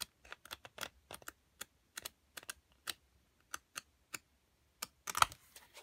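Sheets of a Craft Smith paper pad being flipped one at a time, each page giving a sharp flick in an irregular run of about two to four a second. About five seconds in there is a louder rustle and knock.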